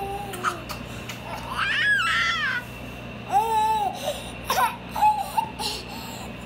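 Baby squealing and cooing: a high squeal that rises and falls about two seconds in, then shorter, lower coos, with a few soft clicks between them. The baby is smiling throughout, so these are happy, excited sounds rather than crying.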